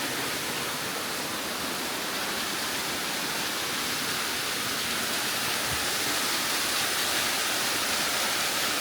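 Mae Kampong Waterfall's water rushing, a steady, even hiss of falling water.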